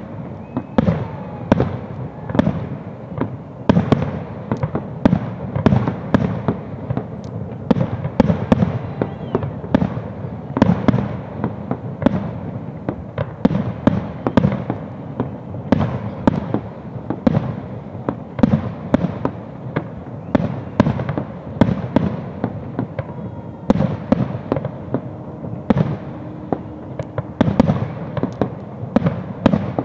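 Aerial firework shells bursting in a continuous, rapid barrage of deep booms, about two bangs a second.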